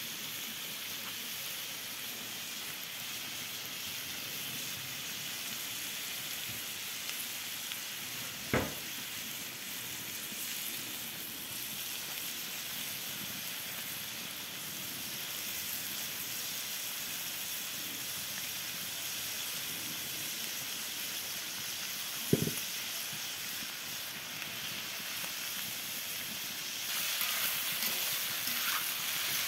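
Pieces of goose meat sizzling steadily on a hot sac, an iron griddle over a wood fire. There are two sharp knocks, about a third of the way in and about three quarters in. The frying gets louder near the end as the pieces are turned.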